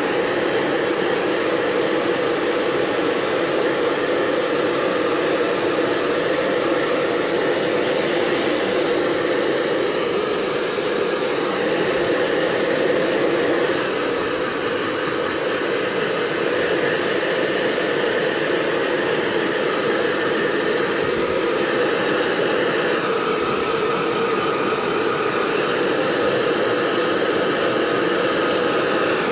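Hair dryer blowing with a steady, even rush of air while drying a freshly bathed dog's coat. Its tone shifts slightly about two-thirds of the way through.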